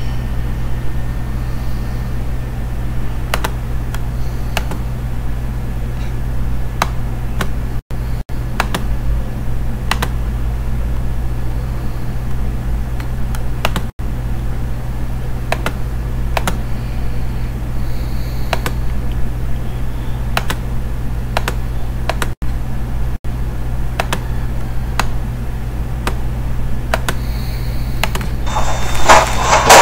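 Steady low hum with scattered sharp clicks of a computer mouse and keyboard. About a second before the end, a video clip's audio starts playing loudly.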